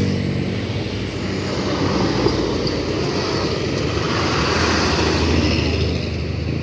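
Large vehicle, most likely a bus, driving past: its engine's low note fades out early on and gives way to a steady rumble of engine and tyre noise that swells and eases.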